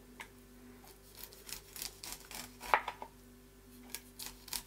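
Kitchen knife slicing the kernels off an ear of corn on a plastic cutting board: a series of short scraping cuts, the loudest a little before three seconds in.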